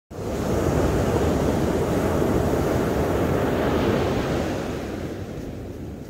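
Ocean surf breaking and washing up a sandy beach: a steady rush that eases off gradually after about four seconds.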